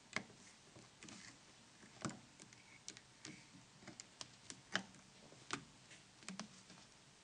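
Faint, irregular small clicks and taps of plastic phone parts being handled and pressed together as a QWERTY keymat assembly is seated in a mobile phone's back cover.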